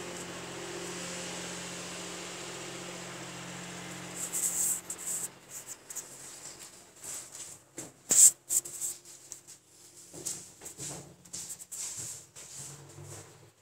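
Hand rubbing and scraping wet cement along the base of a ceramic toilet on a tile floor, in irregular short scratchy strokes, the loudest about eight seconds in. A steady low hum runs underneath for the first few seconds.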